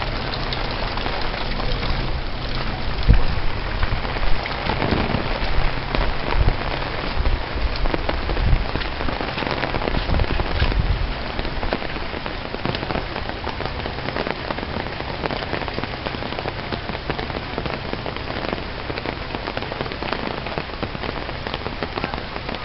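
Steady rain falling, an even hiss, with a few low thumps in the first half.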